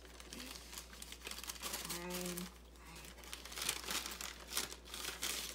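Brown paper bag crinkling and rustling as it is handled and its folded top pulled open, in many short irregular crackles that grow busier in the second half. A brief vocal sound about two seconds in.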